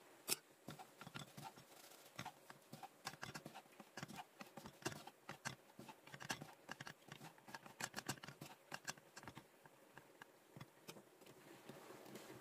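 Knife cutting on a cutting board: light, quick, uneven taps several times a second as broad beans and onion are chopped, thinning out over the last couple of seconds.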